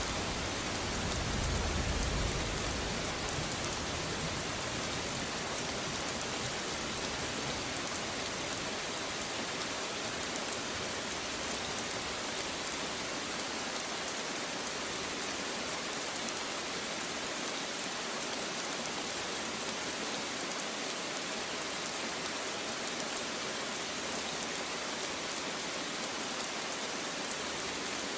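Steady rain falling, an even hiss of drops on surfaces. The low rumble of thunder dies away over the first few seconds.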